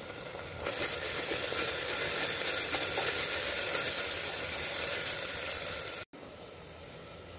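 Chopped onions and ginger-garlic paste frying in hot mustard oil in a pressure cooker, an even sizzle as they are stirred. It turns louder just under a second in and drops to a quieter sizzle about six seconds in.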